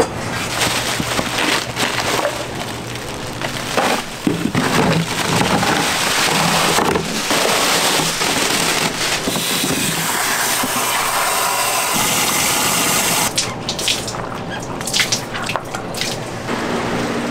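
Water running from a tap into a basin to soak frozen fish, a steady rushing that stops about 13 seconds in, followed by a few light knocks of handling.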